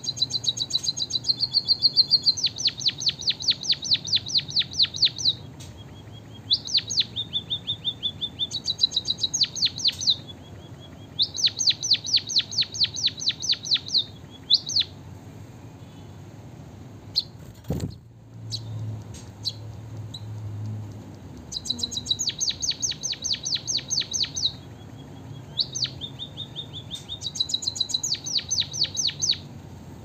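White-headed munia (emprit kaji) singing canary-style song it has learned as a fill: bursts of fast, high, repeated trill notes, each run lasting a few seconds, separated by short pauses. A single sharp knock comes a little past the middle.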